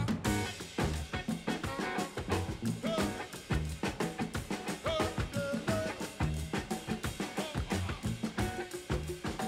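Jazz music with a busy drum kit to the fore, a bass line and a melody instrument playing over a steady quick rhythm.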